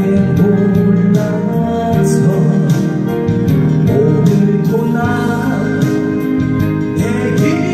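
A man singing a Korean 7080-style ballad into a handheld microphone over musical accompaniment with guitar and a steady beat.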